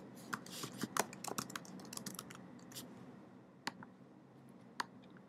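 Typing on a computer keyboard: a quick run of keystrokes for about three seconds, then two separate clicks.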